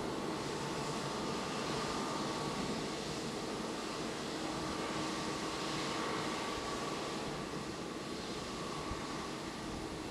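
Jet aircraft noise at an airport: a steady rushing hum with faint, even whining tones.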